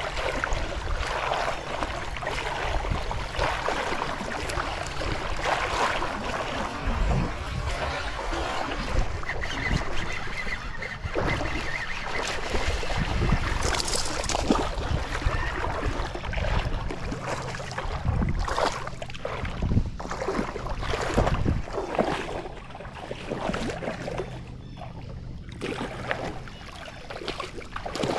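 Water splashing and lapping around a fishing kayak, with wind buffeting the microphone in irregular gusts.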